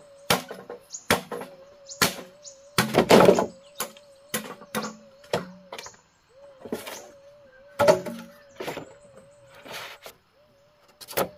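Machete blows striking green bamboo poles: a series of sharp chops at irregular intervals, with a heavier run of blows about three seconds in.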